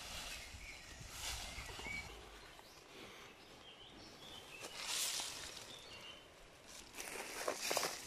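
Tea bush leaves rustling in several short bursts as the bushes are worked through by hand and fertilizer is scattered over them, with faint bird chirps in between.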